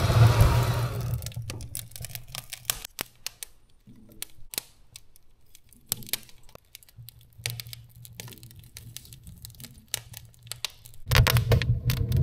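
Kindling crackling in a woodstove as a freshly lit fire catches: sharp, irregular pops and snaps, with a louder rustling burst at the start and again near the end.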